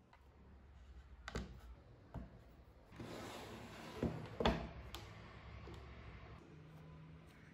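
Light knocks and rubbing of plywood parts being handled and fitted together as the hinged motor plate goes into the wooden box and the table top is pressed shut, with two louder wooden knocks close together about four seconds in.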